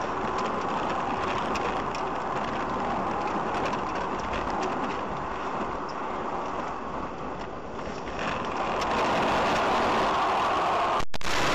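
Steady road and engine noise of a car driving, picked up by an in-car dash camera. It grows louder about eight seconds in and cuts off abruptly near the end.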